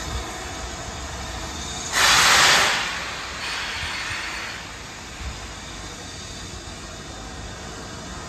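Steam locomotive No. 70000 Britannia, a BR Standard Class 7 Pacific, pulling away: a loud burst of steam hissing about two seconds in, easing off over the next two seconds, over a low steady rumble of the departing train.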